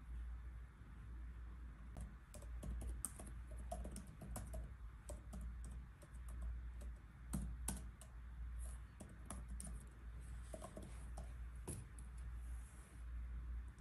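Typing on a laptop keyboard: a quick, uneven run of soft key clicks, fairly faint. Near the end a pen scratches across paper, over a steady low room hum.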